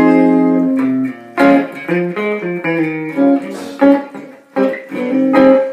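Alvarez Dana II electric guitar played clean through a 1981 Peavey Backstage amp with a 10-inch speaker, on position 4 of its Triforce triplebucker pickup: two coils, which the player thinks are wired in series, with no hum. A chord rings for about a second, then picked notes and chords follow, and a note rings out near the end.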